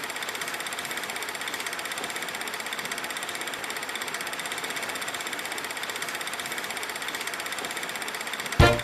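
A steady, fast, even mechanical rattle. Near the end a loud brass-band music hit bursts in.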